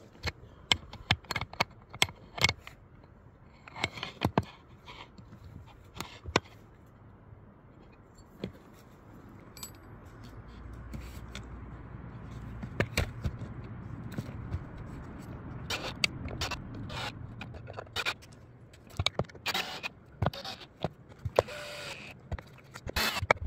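Scattered sharp metallic clicks and clatter from a track gauge and tools being handled on miniature railroad rail and wooden ties. They come thickest in the first few seconds and again near the end, with a low rumble that swells and fades through the middle.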